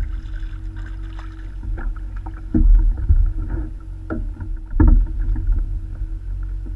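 Heavy thumps and knocks on a plastic fishing kayak as a caught fish is swung out of the water and brought aboard: two loud thumps about two and a half and five seconds in, with lighter knocks between, over a steady low rumble.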